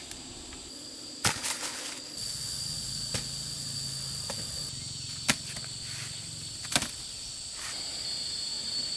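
Insects buzzing steadily at a high pitch, broken by about six sharp cracks or knocks. The loudest come about a second in and just after five seconds.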